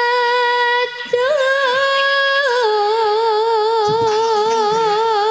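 A woman singing solo and unaccompanied in long held notes, in the manner of a Javanese bawa: a short break about a second in, a step up to a higher note, then a drop to a lower note held with a wide, regular vibrato.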